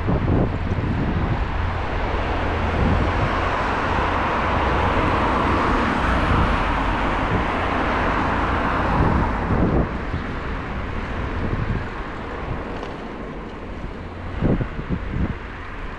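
Street traffic: a vehicle passes, swelling and fading over about the first ten seconds, above a steady low rumble. A few short low knocks near the end.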